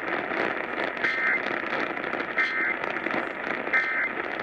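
Emergency Alert System end-of-message signal: three short bursts of two-tone digital data squawk, evenly spaced a little over a second apart, marking the end of the alert. It comes through an AM radio with steady static hiss and crackle underneath.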